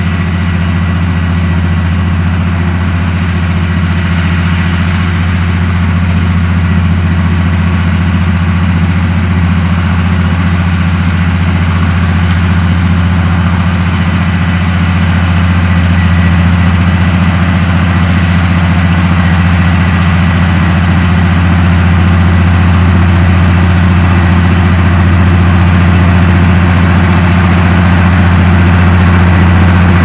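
Komatsu D58P crawler bulldozer's diesel engine running at a steady speed as the machine pushes dirt: a deep, even hum with a faint steady high tone above it, growing slightly louder toward the end.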